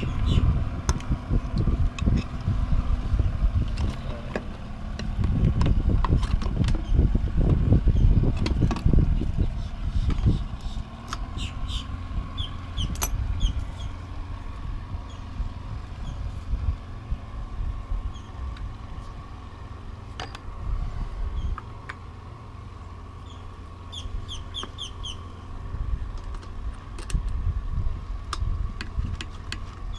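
Scattered clicks and knocks of wiring, bolts and small parts being handled on the toilet treatment unit, over a low rumble of wind on the microphone that is heavier for the first third. Twice a bird gives a quick run of short high chirps.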